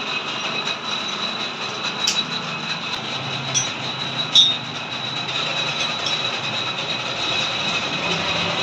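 Metal lathe running with a steady high-pitched whine, and a few sharp metallic clicks between about two and four and a half seconds in.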